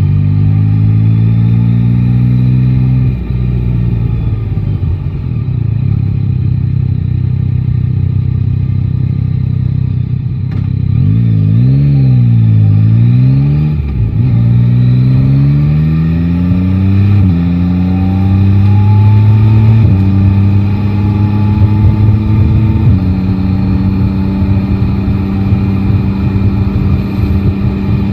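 Yamaha Tracer 9 GT's three-cylinder engine riding in traffic. It holds low, steady revs for several seconds, then accelerates through the gears, its pitch climbing and dropping back at each of about four upshifts.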